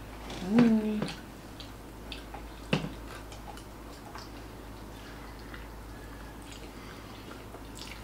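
Quiet eating sounds: utensils clicking on plates and soft chewing, with one sharp clack about three seconds in. A short pitched call rises and holds about half a second in, the loudest sound here.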